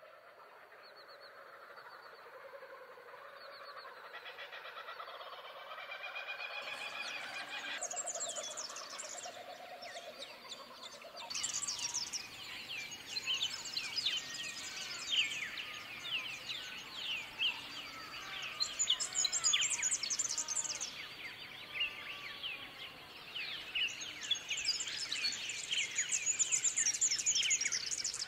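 Many small birds chirping and singing together, a dense chorus of quick falling chirps. It fades in gradually, grows busier, and cuts off abruptly at the end.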